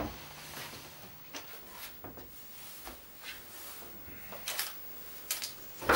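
Scattered light knocks and clicks in a small room, with a louder knock near the end.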